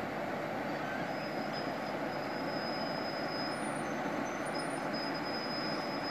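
Steady rush of muddy stream water flowing down a rough channel, with faint high thin tones coming and going above it.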